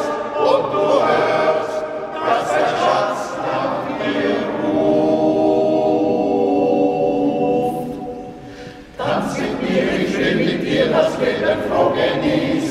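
Men's choir singing a cappella. A long chord is held steady from about four seconds in and fades away, then the next phrase comes in suddenly about nine seconds in.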